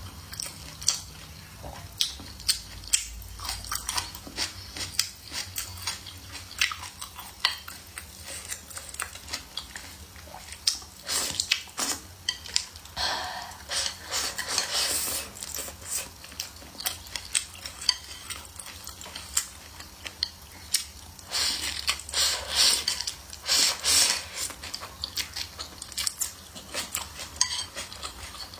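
Close-up eating sounds: utensils clicking against dishes over and over, with chewing, in two denser stretches of wet crackling.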